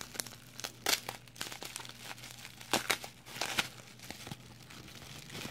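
Plastic packing material being unwrapped by hand: irregular crinkling and sharp crackles, loudest about a second in and again around three seconds in.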